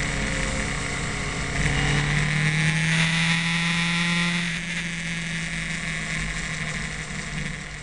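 Motorcycle engine running at road speed with wind rushing over the microphone; from about a second and a half in the engine pulls harder and its note rises, then it eases off again after about four and a half seconds.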